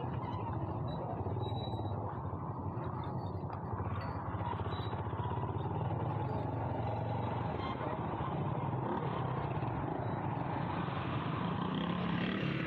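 Motorcycle engine running steadily at low speed, crawling through congested traffic, with the hum of other vehicles around it.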